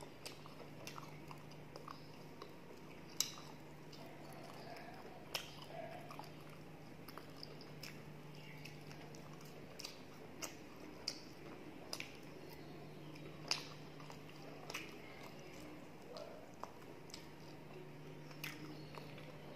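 Close-miked chewing, lip smacks and wet mouth clicks of a person eating luchi and potato by hand, with scattered sharp clicks throughout. A low steady hum comes and goes underneath.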